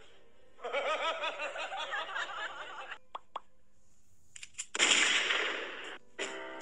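A cat meowing rapidly again and again for about two seconds. Then come two sharp clicks and a short, loud rush of noise.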